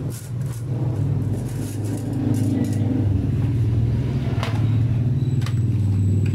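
A steady low rumble under banana fritters sizzling in hot oil in a wok, with a couple of sharp metal clicks of tongs about four and a half and five and a half seconds in.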